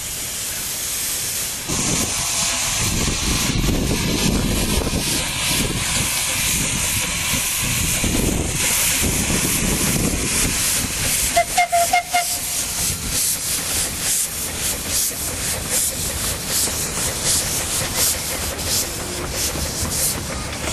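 15-inch gauge miniature steam locomotive letting off a loud, steady hiss of steam as it works, with a short whistle toot just before halfway. A fast, regular beat of exhaust or wheel strokes follows in the second half.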